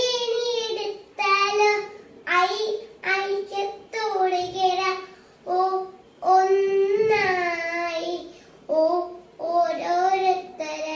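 A young girl singing a Malayalam alphabet song unaccompanied, letter by letter, in short phrases with brief pauses between them.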